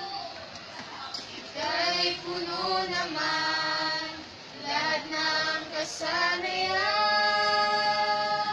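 Voices singing a hymn in slow phrases, holding long notes with short breaths between them.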